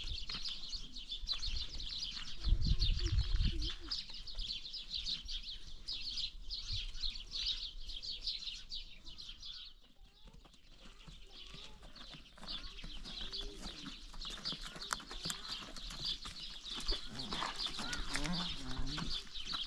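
Pack donkeys walking over stony ground, their hooves knocking on the gravel, with a steady, rapid high chirping in the background that stops about halfway through. A brief low rumble comes about three seconds in.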